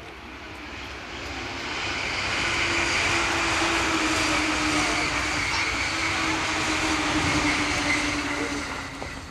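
Electric commuter train passing on the adjacent main line: a steady rush of wheels on rail with a low hum, building over the first few seconds, holding, then fading near the end.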